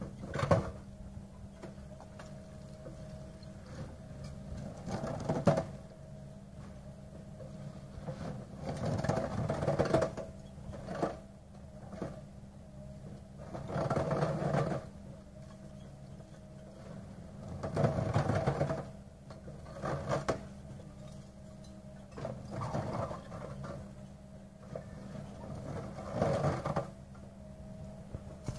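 Hydraulic concrete crusher jaws on an excavator crushing concrete slabs: bursts of crunching and cracking every few seconds, with sharp cracks near the start and about five seconds in, over the steady hum of the excavator's engine and hydraulics.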